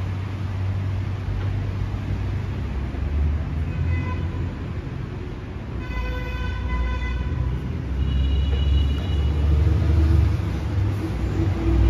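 Street traffic rumbling steadily, with a vehicle horn tooting a few times; the longest toot lasts about a second and a half near the middle, and a higher-pitched one follows.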